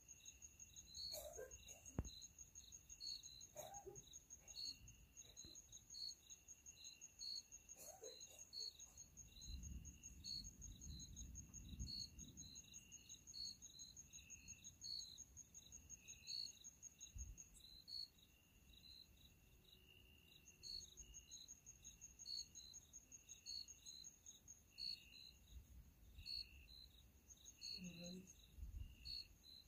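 Crickets and other night insects calling: a steady high trill with repeated regular chirps over it, faint. A soft low rumble comes in about ten seconds in and again near the end.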